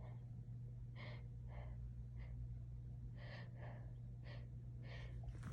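A person's short, sharp, faint breaths, about seven catching in-breaths a second or so apart, as an itchy, irritated nose builds toward a sneeze. A steady low hum runs underneath.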